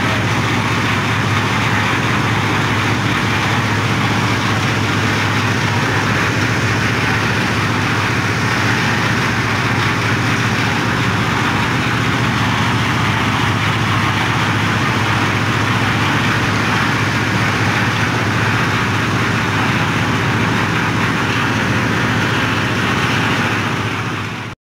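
Engine-driven concrete mixing machine with a lift hoist running steadily, a constant low drone that fades out near the end.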